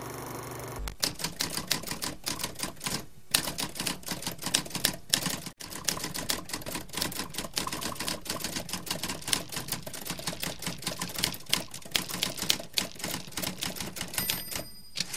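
Typewriter keys clacking in quick, uneven strokes as text is typed, starting about a second in, with brief pauses between words. A short bell ding rings near the end.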